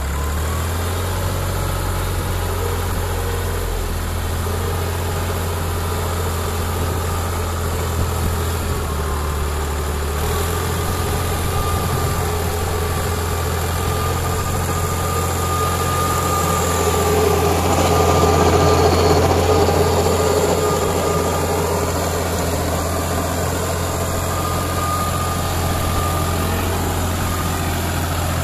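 Case JX55T tractor's diesel engine idling steadily, getting somewhat louder for a few seconds past the middle.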